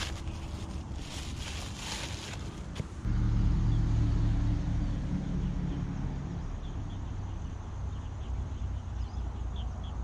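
Plastic bag and dry grass rustling for about three seconds. Then, after an abrupt change, a low engine drone from a passing vehicle comes in loud and eases after a few seconds, with faint high chirps near the end.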